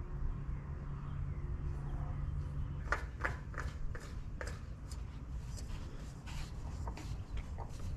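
Light irregular clicks and rubbing of hands working a new oil filter onto the Kohler engine's filter mount, over a low steady hum; the clicks start about three seconds in.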